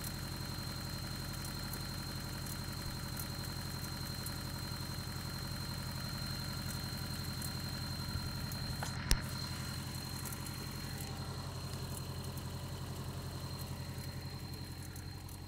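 Toyota 22RE 2.4-litre four-cylinder engine idling steadily, with one sharp click about nine seconds in. The owner suspects it of timing chain noise and possibly rod knock.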